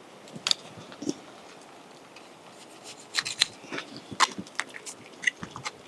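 Hand-operated noodle maker being wound and the pressed noodles snipped off: a scattering of short, sharp clicks and snips, busiest about three seconds in.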